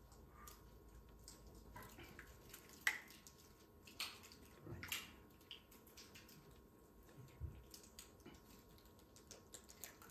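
Light clicks and taps of small objects being handled on a wooden table, the sharpest about three seconds in, over quiet room tone.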